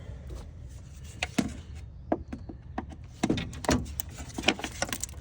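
Irregular clicks and knocks of hands working on car parts under the hood, starting about a second in, as the man works to free the radiator fan and its wiring.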